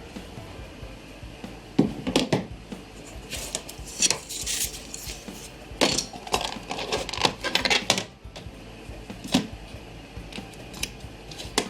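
Metal tools and parts being handled on a workbench: irregular clinks, knocks and clatter as things are picked up, moved and set down, busiest in the middle.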